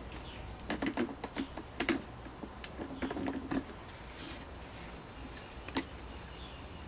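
Irregular light clicks and taps of an aluminium level and a pen being handled against a wall panel while a line is marked: a cluster in the first couple of seconds, a few more around the middle and a single one near the end.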